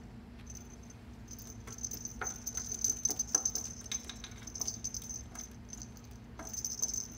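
A kitten playing with a feather wand toy: a small bell jingling in a high steady ring that comes and goes, with light clicks, taps and rattles from the toy's beads and paws scrabbling on the mat. The clicks are busiest from about two to four seconds in and again near the end.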